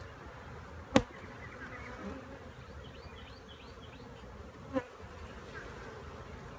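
Honeybees buzzing around an open hive, a steady hum, broken by a sharp knock about a second in and a softer one near five seconds.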